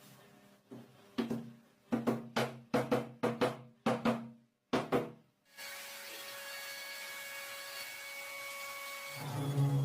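A series of about eleven sharp knocks, each with a short ring, coming quicker through the middle. After that comes a steady hiss with faint held tones.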